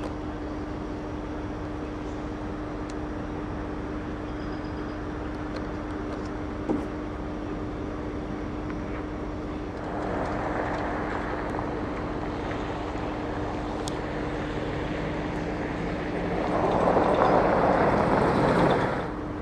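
Vehicle engine running with a steady hum, with a short knock about seven seconds in. A rushing noise rises about ten seconds in and swells louder near the end before cutting off sharply.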